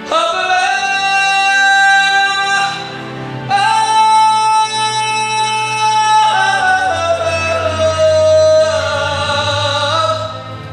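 Gospel solo voice holding long, high sung notes over a sustained low accompaniment. The first note is held for a couple of seconds. A higher note follows, then a slow falling line near the end.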